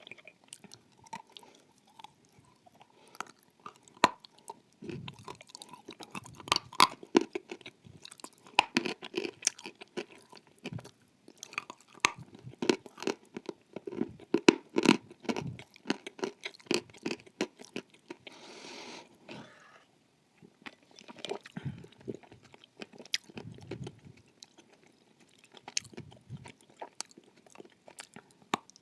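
Close-up crunching and chewing of something dry and brittle, bitten and ground between the teeth in crackly bursts with short pauses. A brief soft hiss comes about two-thirds of the way through.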